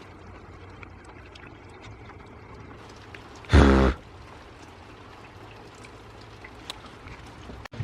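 Rain trickling and dripping steadily, with scattered small drop ticks. A brief loud pitched sound, about half a second long, breaks in about three and a half seconds in.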